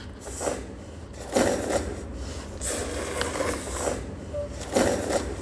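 Plastic candy wrappers crinkling as a handful of wrapped lollipops and gummies is handled, in several short rustling bursts.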